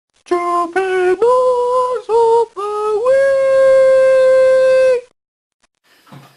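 A single voice singing a short jingle of six steady notes, the last one held for about two seconds before stopping abruptly.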